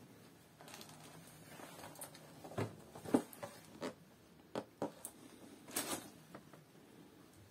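Cardboard knife box being picked up and turned over, with a soft rustle of the plastic mailer bag about a second in, then a string of light taps and knocks from the box being handled.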